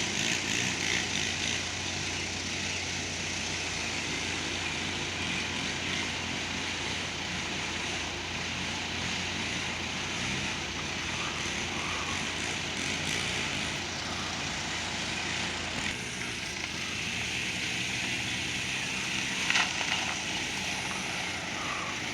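A steady engine drone holding an even pitch throughout, over outdoor background noise, with a brief knock near the end.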